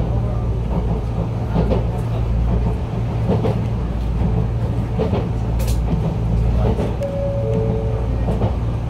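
Enshu Railway 2000 series electric train running along the track, heard from inside at the front: a steady low rumble and hum with scattered short clicks from the wheels and running gear. A brief steady tone sounds about seven seconds in.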